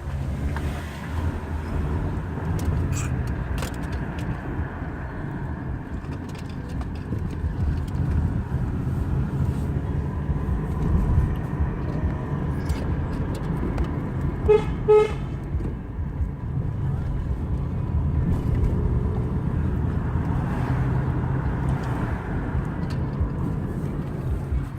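Car running on the road with a steady low rumble, and two quick horn toots about halfway through.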